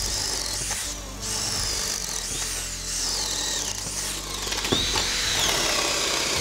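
Two cordless compact drills, a DeWalt DCD791 and a Milwaukee 2801 M18, boring 3/4-inch holes with spade bits through pine lumber at once. Their motor whine falls and rises in pitch as the bits bite into the wood and clear it.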